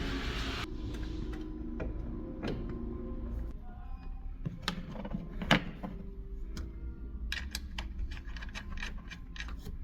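Scattered clicks and metallic knocks of tools and parts being handled, with one sharper knock partway through and a quicker run of clicks near the end, over a steady low hum.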